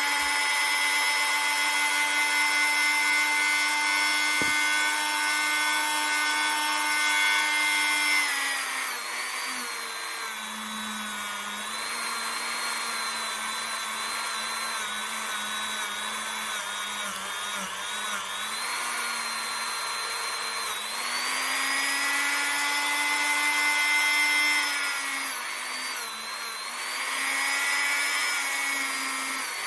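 Dremel rotary tool spinning a wire brush bit against a steel revolver hammer to clean and polish it. It gives a steady high whine; about eight seconds in the pitch drops and wavers, it climbs back about twenty-one seconds in, and it dips again near the end.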